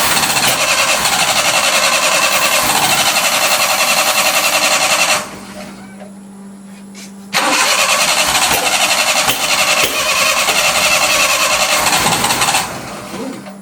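Suzuki mini truck's engine being cranked on the starter twice, each time for about five seconds, with a short pause between. This is a first start attempt after the carburetor and floats were adjusted, and the engine does not keep running after either crank.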